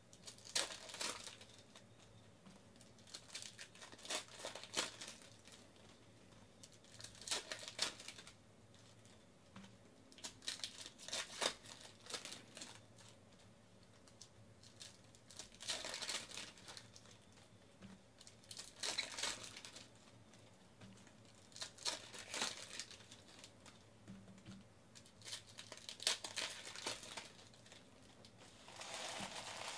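Trading-card pack wrappers from 2014 Panini Elite Extra Edition baseball packs crinkling and tearing as the packs are ripped open and the cards shuffled and stacked. The rustling comes in short bursts every few seconds.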